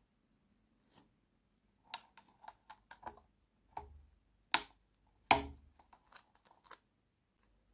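Small, hard clicks and taps of miniature plastic toy kitchen pieces being handled and set down, irregular and spaced out. Two sharper knocks come about halfway through.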